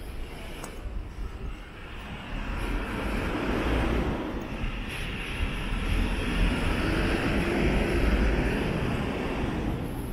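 Engine and rushing noise of a passing vehicle in the distance. It swells about two seconds in, eases a little, then swells again.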